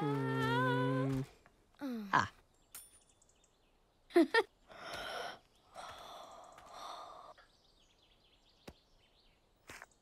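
Wordless vocal sounds from cartoon dragon characters. A held, hum-like groan lasts about a second, then come short falling sighs and gasps, the loudest about four seconds in, and a few breathy rushes of air.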